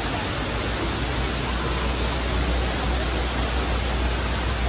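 Large indoor waterfall running: a steady rush of falling water with a low rumble underneath.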